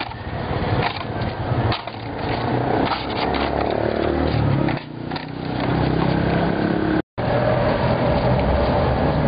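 Street traffic noise, motor vehicles passing close by with a steady low rumble, with scattered clicks of handling at the stall. The sound cuts out for a moment about seven seconds in.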